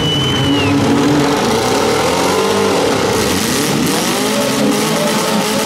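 Several four-cylinder demolition derby car engines revving, their pitches rising and falling over one another. A high steady squeal sounds through the first second.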